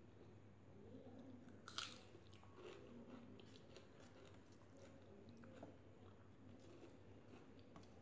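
Faint chewing and mouth sounds of a person eating rice and curry by hand, with scattered small clicks and one louder sharp click about two seconds in.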